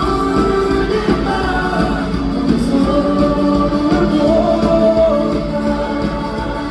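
Live rock band music with held sung notes, recorded from the concert audience.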